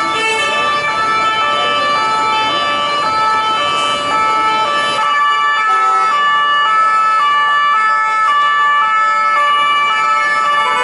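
French police car's two-tone siren, alternating between a high and a low note about every half second. In the first half a second two-tone siren overlaps it out of step, over traffic noise.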